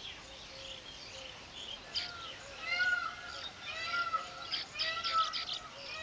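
Weaver birds chirping: after a quiet start, a run of short, arched chirps begins about two seconds in, roughly two a second, with higher twittering over them.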